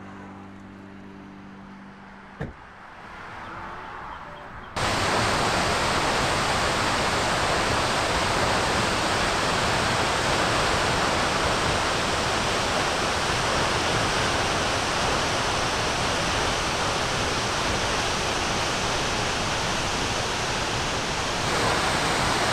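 Steady roar of a tall waterfall, Wailua Falls, crashing into its plunge pool, cutting in abruptly about five seconds in. Before it there is a quieter stretch with a low hum and a single sharp click.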